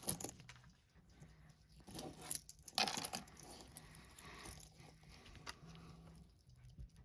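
Handling noise: irregular rustling and light clicks, busiest about two to three seconds in.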